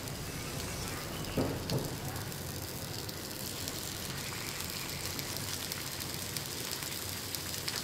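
Coconut oil sizzling steadily in a non-stick pan as a piece of masala-coated fish is laid in to shallow-fry.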